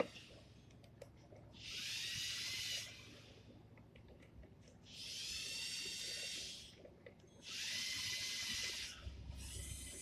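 Lego Mindstorms EV3 car's electric motors whining in four bursts of about a second each, each a steady high-pitched whine as the car drives. Small clicks from the plastic controls come in between.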